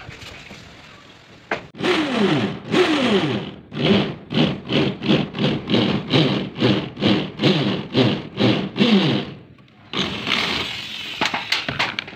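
Cordless drill driving a self-drilling tek screw into corrugated galvanized iron roofing sheet. The motor starts about two seconds in and runs in short pulses, about three a second, its pitch falling in each. After a brief pause near the end it runs again more steadily.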